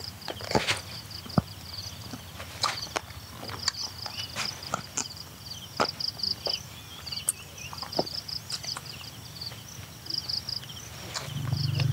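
Insects chirping in a fast pulsing trill, with irregular sharp clicks and taps scattered throughout; a low hum rises just before the end.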